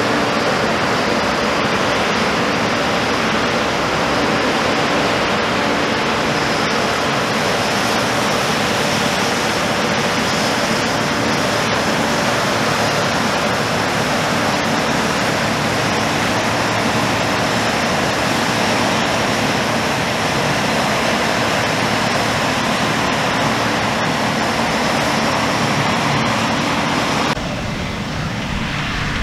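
New Holland CR1090 combine harvester running while it harvests oilseed rape: a loud, steady rushing drone of engine and threshing machinery. Near the end the sound turns duller and lower.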